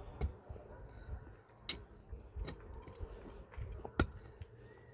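A few irregular sharp clicks and light knocks, such as objects being handled or tapped, over a low rumble; the loudest knock comes about four seconds in.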